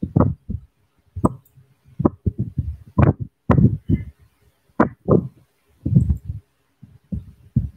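A string of irregular dull thumps and knocks, about a dozen, some with a sharp click on top: handling noise close to the microphone, with hands bumping the desk or the recording device.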